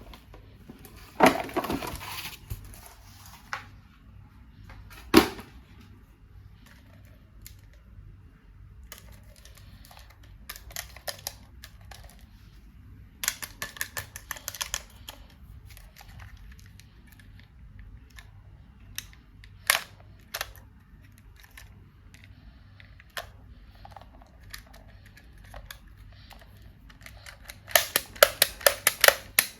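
Hands handling plastic toys and packaging: scattered clicks and taps, a sharp knock about five seconds in, and two runs of rapid clicking, one around the middle and one near the end.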